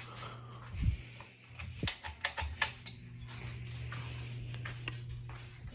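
Ceiling fan running with a steady low electrical hum, and a quick run of sharp clicks about two seconds in.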